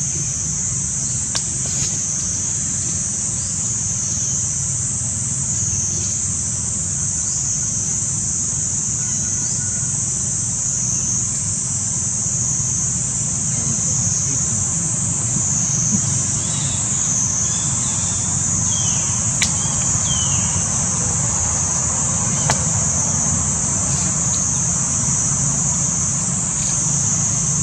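Steady high-pitched cicada chorus, swelling and fading every couple of seconds, over a low steady rumble.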